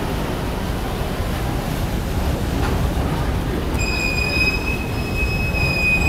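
A train running on the rails with a steady low rumble. About four seconds in, a steady high-pitched wheel squeal sets in and holds.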